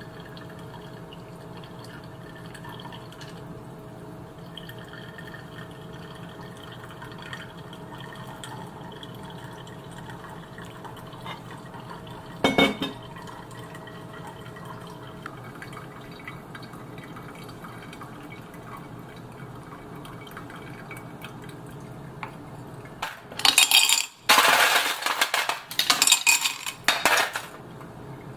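Dishes and cutlery clattering loudly in a run of irregular knocks over the last five seconds, after a long stretch of low steady hum with faint liquid sounds and a single clink about halfway through.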